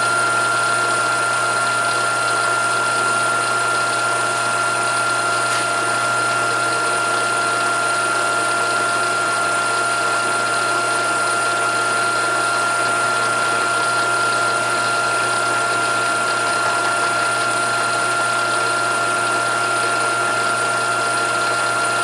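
Milling machine running steadily with an even whine as it mills a hinge workpiece clamped in the vise, thinning it down.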